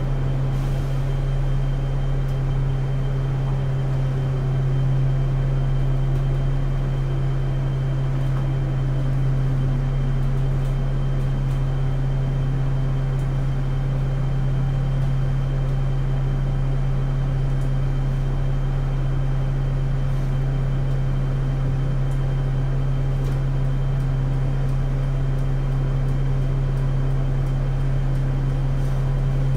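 Simulated diesel engine of a Dennis Dart single-deck bus idling in the OMSI bus simulator, a steady low hum that does not change.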